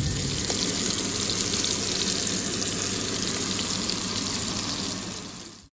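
Small whole fish frying in oil in a pan, with a steady sizzle that fades out near the end.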